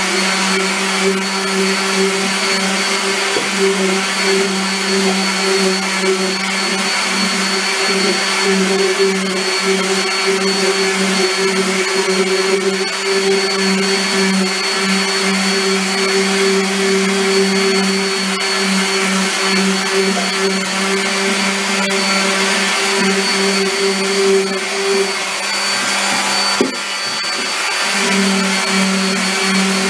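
Electric random orbit sander running steadily against a peeled cedar log, a constant motor hum with a high whine over it. Near the end the sound briefly dips and wavers before settling back to the same hum.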